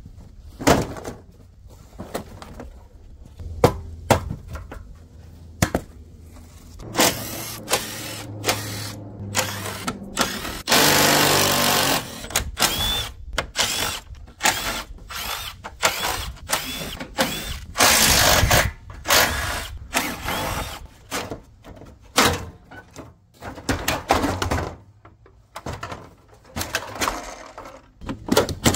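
A power drill running in short bursts, the longest about a second, amid repeated sharp knocks and clatter of plastic car-body parts being unbolted and pulled off.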